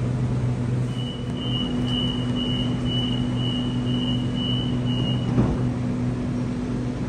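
Sydney Trains Waratah double-deck train standing at an underground platform with a steady low hum, while its door-closing warning beeps about twice a second for some four seconds; the doors then shut with a single thump about five and a half seconds in.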